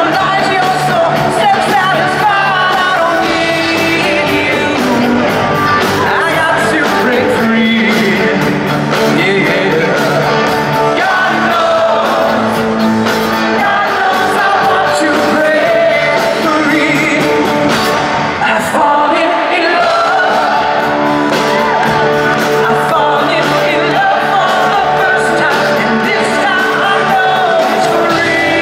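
A live rock band plays in a large arena, with a male lead vocalist singing the melody over electric guitar, recorded from within the audience.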